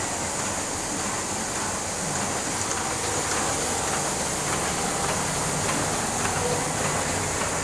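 Heidelberg Speedmaster SM52 sheet-fed offset printing press running steadily, with a continuous mechanical noise and hiss.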